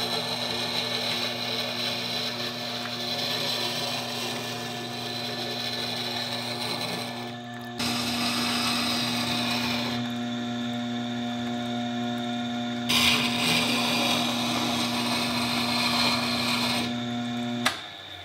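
Tormek T8 wet sharpening machine running: its motor hums steadily while the steel edge of a roughing gouge held in the jig grinds against the turning water-cooled stone. The sound jumps in level a few times and cuts off shortly before the end.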